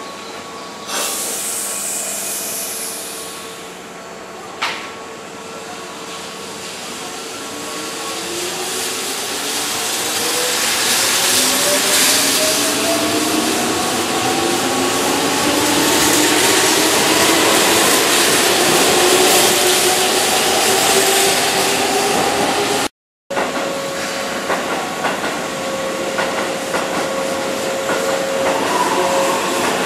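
Keihan electric train pulling out of the station: a hiss of air about a second in, then motor and gear whine in several rising tones that climb in pitch and grow louder as it accelerates. After a sudden cut near the end, another Keihan train's steady electrical hum with a falling whine.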